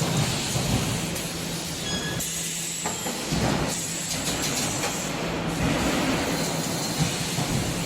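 Machinery of an EPS 3D wire mesh panel production line running, with a steady hum and clatter and intermittent bursts of air hiss.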